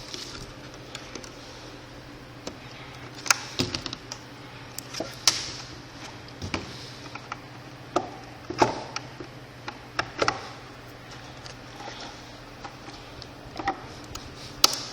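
Hand tools working at an e-bike battery's fuse-holder wiring: scattered light clicks and taps of metal on plastic as the shrink wrap is cut. A steady low hum runs underneath.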